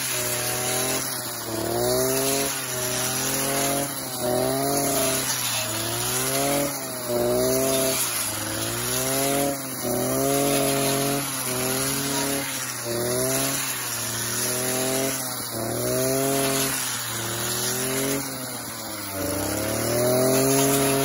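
Partner two-stroke brush cutter running at high revs and cutting tall grass and weeds. Its pitch dips and recovers about every second and a half as the blade swings through the growth and takes the load.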